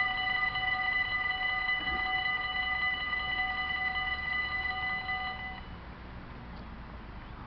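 Dutch level crossing warning bells ringing while the barriers lower, a steady high multi-tone ring that stops about five and a half seconds in as the barriers come down fully, leaving a low faint background rumble.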